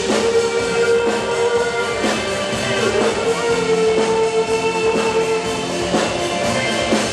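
Live rock band playing: drum kit keeping a steady beat with sustained guitar chords, recorded loud and full from the audience.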